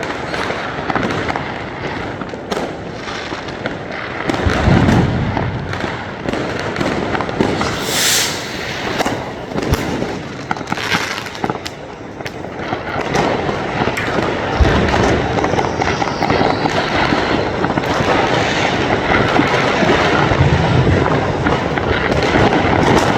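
Many fireworks and firecrackers going off at once: a dense, continuous crackle of bangs. Deep booms stand out about five seconds in and again near fifteen and twenty-one seconds, with a short hiss about eight seconds in.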